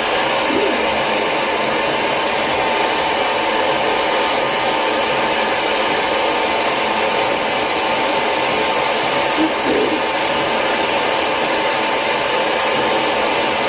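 Lange Soleil hair dryer running steadily during blow-drying, an even rush of air with a thin steady whine in it.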